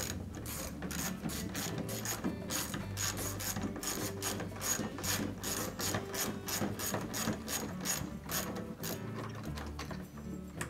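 Socket ratchet clicking as it loosens a 3/8-inch bolt on a refrigerator's top door hinge, a rapid even run of pawl clicks, about four a second, that stops shortly before the end.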